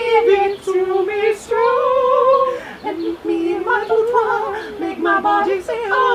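Voices singing a pop song, with long held notes that slide up and down; near the end more than one voice sings at once.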